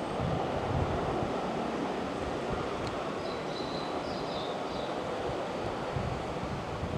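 Steady rushing rumble of an electric train running along the track past the station platform.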